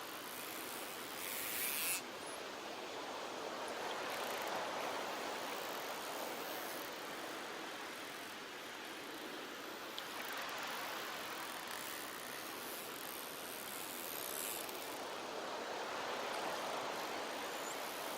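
Ocean surf washing onto a beach, a steady rush that swells and fades every few seconds. A louder, hissier rush builds about two seconds in and cuts off sharply.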